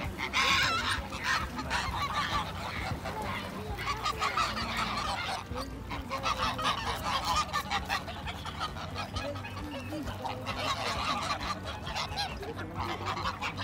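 A flock of domestic geese honking continuously, many calls overlapping, as the birds crowd in to be fed bread.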